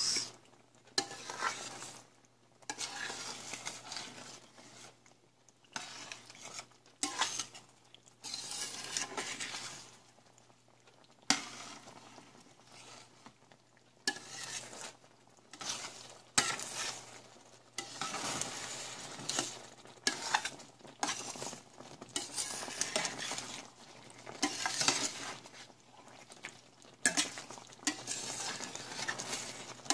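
A metal utensil stirring meatballs and penne in a simmering cream sauce in a stainless steel skillet, scraping against the pan in irregular strokes, with a few sharp clinks.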